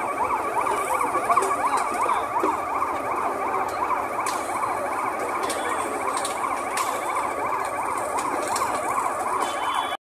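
A yelping siren-like tone, swooping up and down in pitch several times a second without a break, starting and stopping abruptly.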